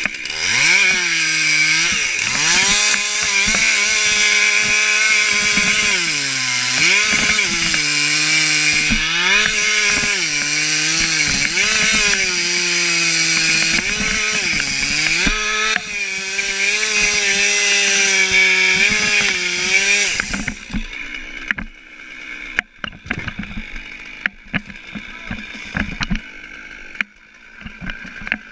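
Chainsaw running hard in a cut into a tree trunk, its pitch dropping again and again as it bogs down under load and picking back up between pushes. About two-thirds of the way through it stops, leaving scattered knocks and crackles.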